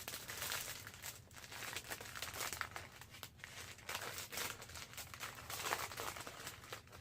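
Plastic wrapping being crinkled and torn by hand as it is worked off an item, in irregular crackling bursts.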